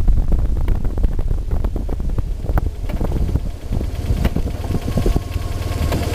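BMW R1100RT's boxer twin engine running, with wind rumble on the microphone while riding. About five seconds in the sound settles into a steadier low hum.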